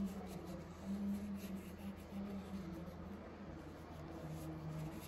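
Faint rubbing of a moist cleaning wipe over the metal jaws of needle-nose pliers, scrubbing at rust spots.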